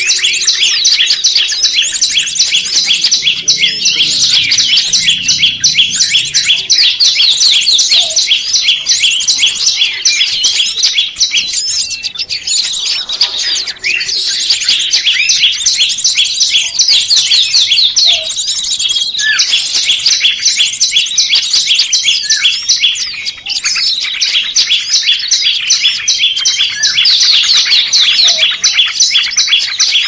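Dense, rapid high-pitched chirping and trilling of small songbirds, several songs layered into an almost unbroken stream, thinning briefly near the middle.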